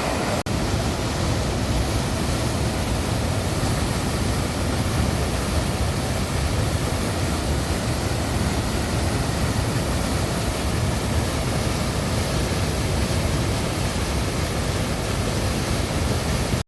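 Waterfall, a steady rush of falling and churning water, with one very brief break about half a second in.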